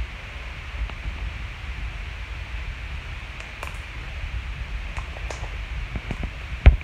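Hands kneading, stretching and squeezing slime against a stone countertop: a steady low rustle of handling, with scattered small clicks from the slime from about three seconds in. One much louder, sharp click with a low thump comes near the end.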